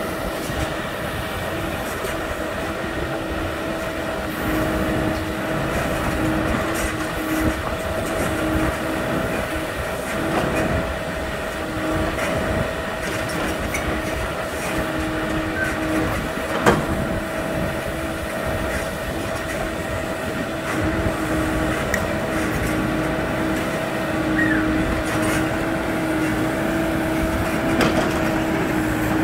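Hidromek 102 S backhoe loader's diesel engine running steadily, with a steady hum, while its backhoe arm works the bucket. A single sharp knock comes about two-thirds of the way through.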